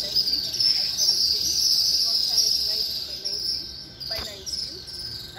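Steady high-pitched insect chirring, loudest in the first three seconds and fading toward the end, with a single click about four seconds in.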